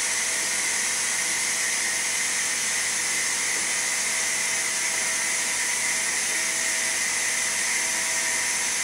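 Steady hiss with a faint high whine.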